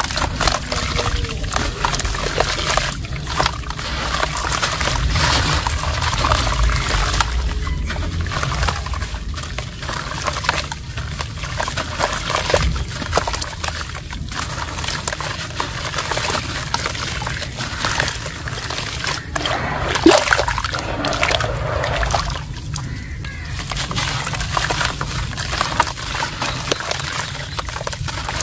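Soft, dusty lumps of reused pure cement crushed and crumbled in bare hands, grains and pieces falling and splashing into water in a plastic tub. The crumbling and splashing go on without a break, with one louder hit about twenty seconds in.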